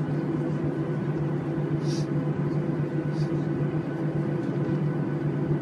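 Jet airliner's engines and cabin hum heard from inside the passenger cabin as the plane moves on the ground: a steady drone with no rise in pitch. Two short hisses come about two and three seconds in.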